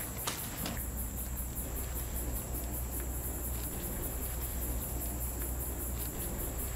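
Crickets chirping in a steady, evenly spaced pulse, several chirps a second, over a low steady hum.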